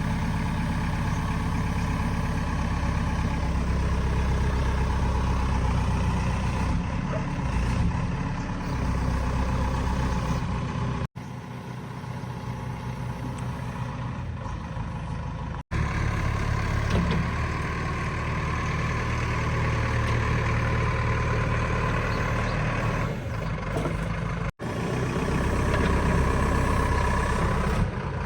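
JCB 3DX backhoe loader's diesel engine running steadily under work. The sound breaks off abruptly three times, and it is quieter for a few seconds in the middle.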